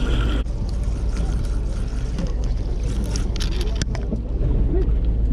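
Charter fishing boat's engine running steadily with a low rumble, with a few short knocks on deck.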